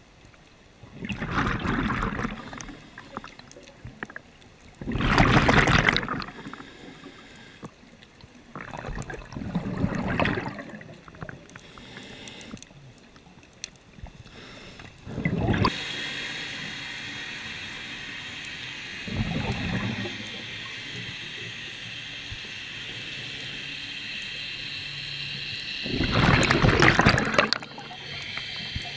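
Scuba regulator exhalations heard underwater: about six gurgling bursts of bubbles, each about a second long and a few seconds apart. A steady high whine joins about halfway through.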